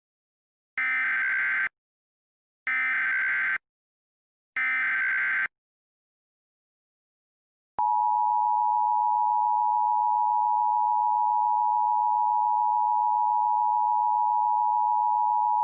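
Emergency Alert System SAME header: three short bursts of buzzy data tones, each just under a second long and about a second apart. About eight seconds in, the steady two-tone EAS attention signal begins, announcing an emergency alert message.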